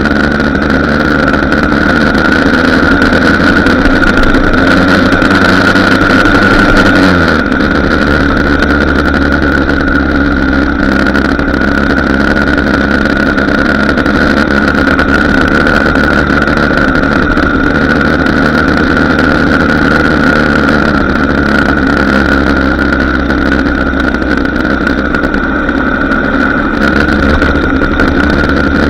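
Small two-stroke moped engine running steadily while riding. About seven seconds in the engine note drops suddenly in pitch, then holds steady.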